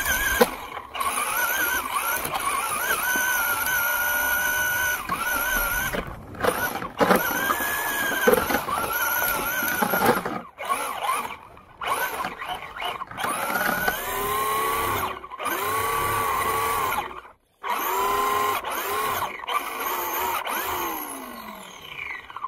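Electric RC car motor and gearing whining as the throttle is worked, the pitch rising and falling over and over. It stops briefly a few times and ends in a falling whine as the car slows.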